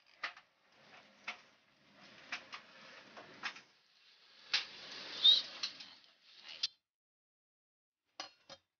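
Air fryer's mechanical wind-up timer ticking, sharp ticks about once a second over a faint hiss, with one short high chirp in the middle as the loudest sound. Two quick clicks near the end.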